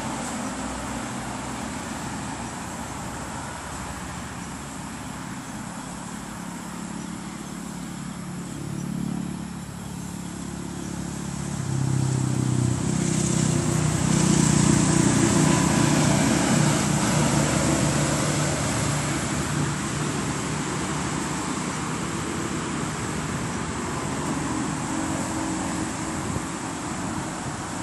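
Road traffic: motor vehicle engines running, with one vehicle growing louder about twelve seconds in and fading again several seconds later.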